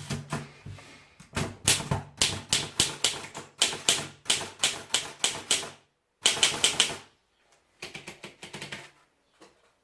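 Underwood 4-bank portable typewriter being typed on: sharp keystrokes at about three a second, then a short dense rattle about six seconds in, a pause, and another run of keystrokes.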